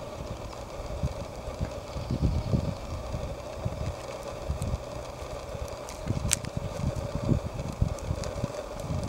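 Low, gusty wind rumble buffeting the microphone, over a faint steady hum, with a single sharp click about six seconds in.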